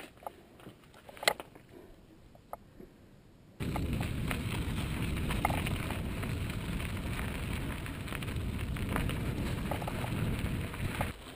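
A few faint clicks and one sharp click, then about three and a half seconds in a sudden switch to a mountain bike rolling over a gravelly dirt trail. The tyres crackle and crunch over grit under a steady low rumble of wind on a helmet-mounted GoPro.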